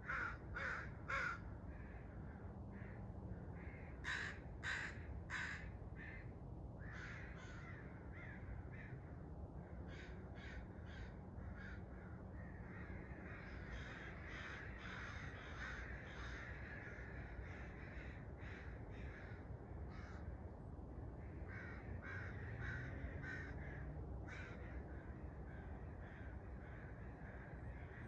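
Birds calling at daybreak: loud harsh calls in sets of three near the start and again about four seconds in, then many shorter calls overlapping, over a steady low background rumble.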